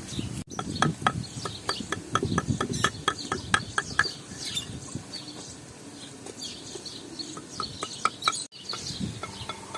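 Chickens clucking in quick runs of short calls, with small birds chirping over them.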